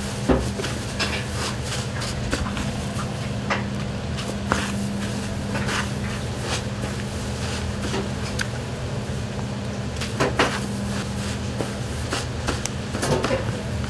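Pork cutlets being breaded by hand: scattered soft pats, clicks and rustles as they are dipped in beaten egg and pressed into panko crumbs in a metal tray, with a small cluster of knocks a little after ten seconds. A steady low hum runs underneath.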